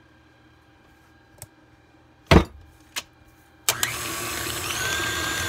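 A couple of knocks, the loudest about two seconds in, then an electric stand mixer is switched on near the end and runs steadily with a faint motor whine, beating cake batter of creamed shortening, sugar and egg yolks.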